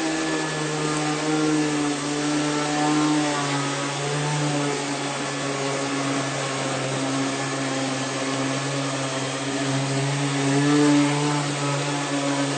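Rainbow water-filtration vacuum cleaner running steadily while vacuuming a mattress: a constant motor hum with airflow noise, its pitch wavering slightly as the tool moves over the fabric.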